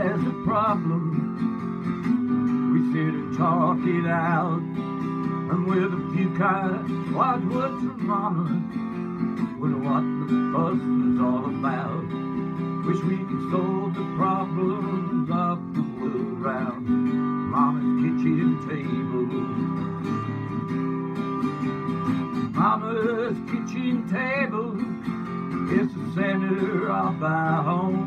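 Acoustic guitar strumming the steady accompaniment of a country song, with a wavering vocal line coming and going over it.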